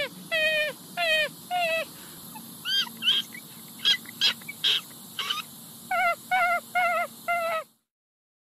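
Raccoon calling: short, wavering, whining calls repeated a little under two a second, a stretch of higher chirps in the middle, then another quick run of calls, cutting off suddenly near the end.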